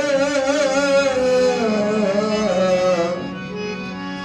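Devotional singing with harmonium. A male voice holds one long, wavering, ornamented note over the harmonium's drone. About three seconds in the voice stops, and the harmonium's held chord carries on alone, a little softer.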